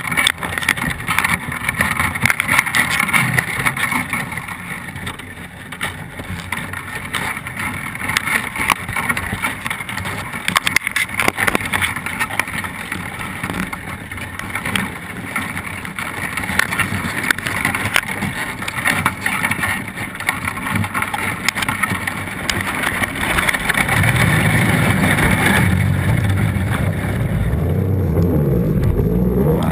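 Muffled underwater noise picked up by a camera inside a crab ring net: a steady rush with frequent small crackles and clicks. A stronger low rushing sound builds over the last six seconds as the net rises.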